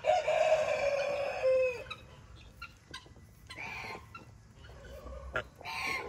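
Rooster crowing: one long crow of nearly two seconds that drops in pitch at its close, followed by a few fainter short calls.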